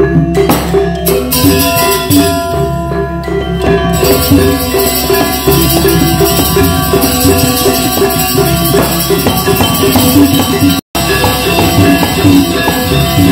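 Balinese gamelan ensemble playing, bronze metallophones ringing in fast interlocking patterns over drums and gongs. The sound cuts out for a split second near the end.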